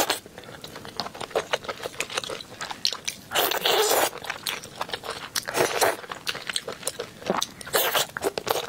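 Close-miked wet eating sounds: biting and sucking braised meat off a bone, with many small chewing and lip-smacking clicks. Three longer sucking slurps come at about three and a half, five and a half, and eight seconds in.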